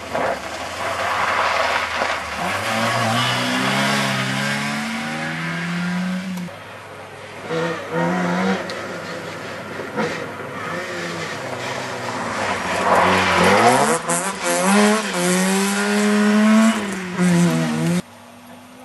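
Two rally cars pass on a loose gravel stage, one after the other, their engines revving hard with rising and falling pitch through the gear changes. Between and behind the engines comes the noise of tyres on loose gravel.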